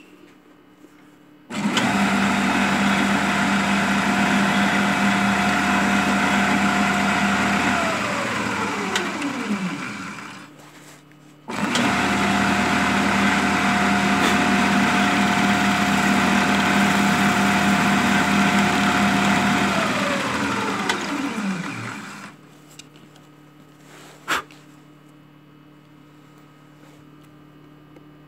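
Benchtop drill press started twice: each time the motor runs with a steady hum and whine for six to eight seconds, then winds down with a falling pitch after it is switched off. A single sharp click comes a couple of seconds after the second run-down.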